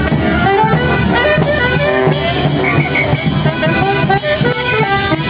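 Instrumental music: a quick, busy melody over a steady bass beat.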